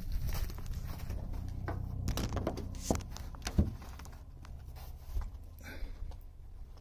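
Footsteps crunching on gravel and grass, with scattered clicks and a couple of sharper knocks about three seconds in.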